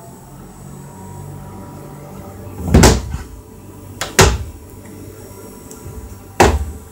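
The hinged door of a wall-mounted electrical enclosure holding relay contactors is shut and fastened, giving three sharp knocks: one about three seconds in, one about a second and a half later, and one near the end. A faint steady low hum runs underneath.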